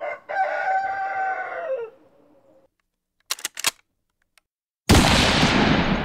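A rooster crowing once, a single crow of about a second and a half that drops in pitch at the end. A few quick clicks follow, then a sudden loud burst of noise about five seconds in that fades away over a couple of seconds.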